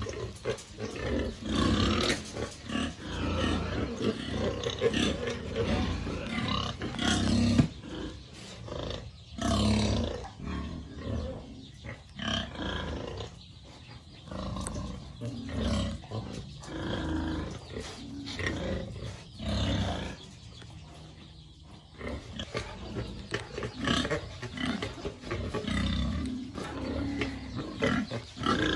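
Domestic pigs, a sow among them, screaming over and over in loud, irregular bouts, with a quieter spell about two-thirds of the way through: the calls of hungry pigs wanting to be fed.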